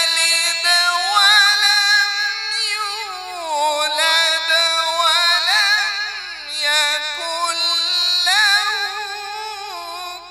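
A man reciting the Quran in Arabic in a high, melodic chanting voice, holding long ornamented notes with a wavering pitch. The melody dips lower about three seconds in and climbs back up around seven seconds.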